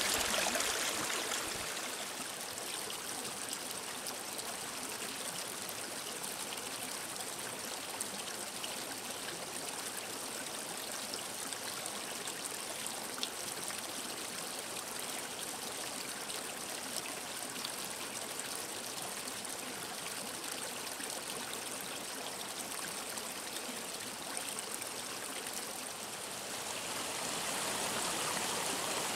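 Mountain stream flowing and trickling over stones, a steady rush of water, a little louder in the first second or two and again near the end.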